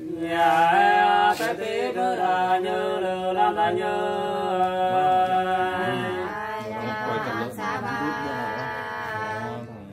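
Hát sli, Nùng folk singing, sung unaccompanied: slow, drawn-out notes held for seconds and bending between pitches. It starts about half a second in and fades away near the end.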